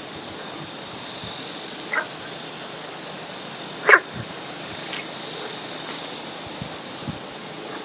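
Two short animal calls, each falling in pitch, about two seconds apart, the second louder, over a steady high hiss.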